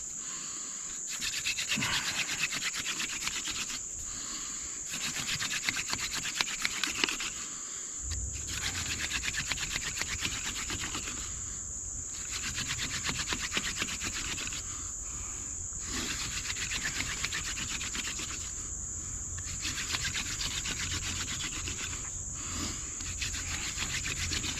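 Hand-drill friction fire: a dog fennel spindle spun between the palms grinding and squeaking in a cedar fireboard, in runs of about three seconds with a brief pause each time the hands go back to the top. A steady chorus of crickets and other insects runs underneath.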